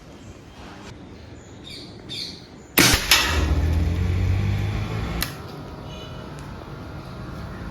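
A shot from a .22 Weihrauch HW80 break-barrel spring-piston air rifle about three seconds in: a sharp loud crack with a second knock just after it, followed by a low rumble that stops with a click about two seconds later. Birds chirp briefly just before the shot.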